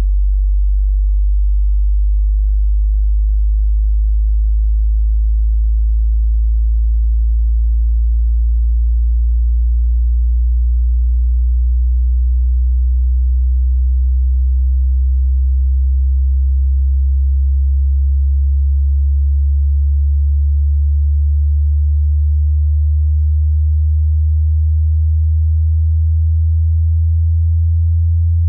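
A pure sine test tone, very low in pitch and rising slowly and steadily, from the low end of a 20 Hz to 20,000 Hz hearing-test sweep.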